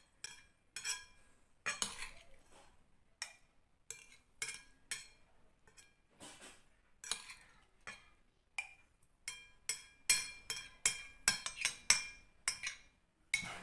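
Irregular clinks of a utensil against a glass bottle as grated turnip is put into it, each tap ringing briefly. The taps come faster and louder over the last few seconds.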